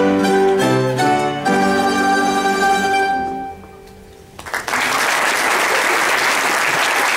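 An ensemble of mandolins and a guitar plays plucked notes, then ends on a chord that rings and fades out. Audience applause breaks out about four and a half seconds in and carries on.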